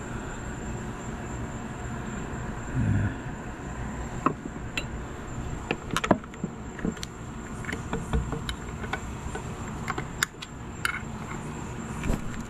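Irregular light metallic clicks and taps of a screwdriver and hands working the water pump base plate off an outboard lower unit's driveshaft, over a steady high insect drone.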